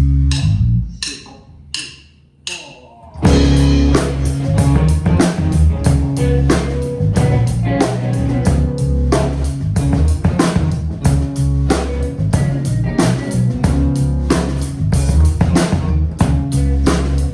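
A band playing a song with guitar, bass and drums. After a short break with only a few sharp cymbal-like hits, the full band comes back in just over three seconds in with a steady drum beat.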